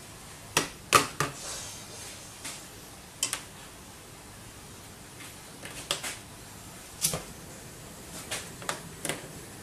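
Scattered sharp clicks and light taps of metal tweezers and ceramic processor chips being picked up and set down on a hard tabletop, over a faint steady hiss.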